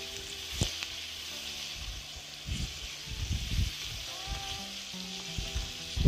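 Sliced onions sizzling in hot oil in a metal kadai, stirred with a metal spatula that scrapes and knocks against the pan a few times.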